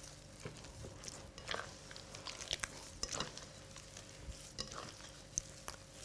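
Hands mixing and rubbing crumbly flour-and-smen dough in a glass bowl, faint and irregular, as orange blossom water is worked in a little at a time to bring the dough together.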